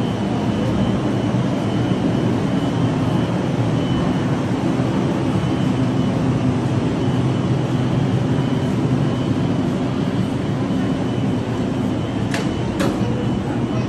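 Manyosen tram car 7075 standing at a stop, its onboard equipment giving a steady hum with a faint high whine. Two sharp clicks near the end.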